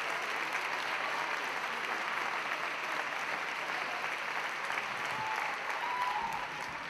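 Theatre audience applauding, a steady dense clapping that begins to die away near the end.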